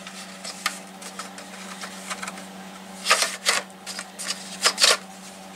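Hard plastic pegboards and other items clicking and clattering as they are rummaged out of a box and lifted, with louder bursts of handling about three and about four and a half seconds in. A steady low hum runs underneath.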